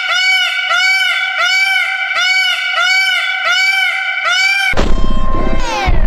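An animal giving short, high, arching cries over and over, about two a second. Nearly five seconds in they give way to a louder, lower, rough sound with falling slides in pitch.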